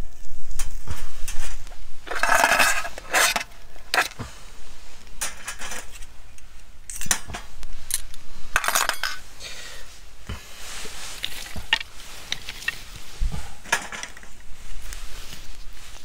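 Metal tongs and cutlery clinking and scraping against the steel grill of a small folding wood-burning stove, in short scattered bursts, the loudest twice: about two and about nine seconds in.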